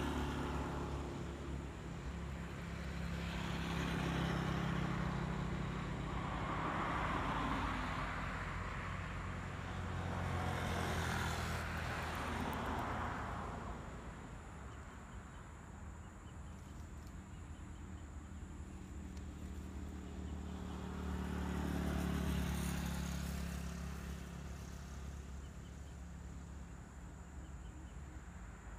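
Road traffic: several motor vehicles pass one after another, each swelling and fading, over a steady low engine hum.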